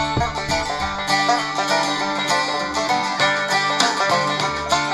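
Banjo-led, country-style music playing from the Tecsun R-9700DX portable radio's speaker, picked up in FM stereo from a low-power FM transmitter.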